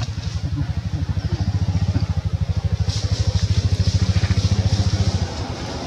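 A small engine running with a rapid, even pulse, growing louder and then dropping off about five seconds in.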